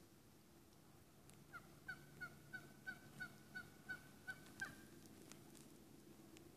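Wild turkey yelping: a run of about ten evenly spaced yelps, roughly three a second, starting about a second and a half in and stopping about two seconds later.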